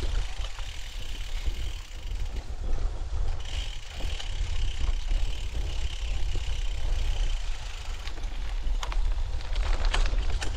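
Wind buffeting the microphone while riding a bicycle along a trail, with the bike's mechanical ticking and rattling. A few sharp clicks come near the end.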